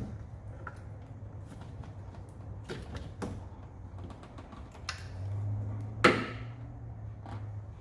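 Scattered clicks and knocks of tools and engine parts being handled during engine disassembly, with one louder knock about six seconds in, over a steady low hum.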